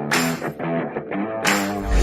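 Background rock music led by electric guitar, with a steady beat of drum hits.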